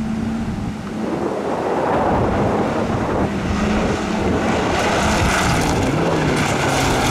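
Peugeot 206 rally car approaching at speed on a gravel stage, growing louder, its engine note shifting up and down with the throttle and gears. The hiss and spatter of gravel from the tyres builds in the second half.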